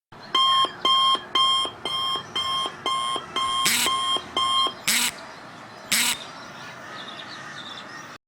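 Electronic alarm beeping, eight short pitched beeps at about two a second, then stopping. Three short hissing bursts land around the middle.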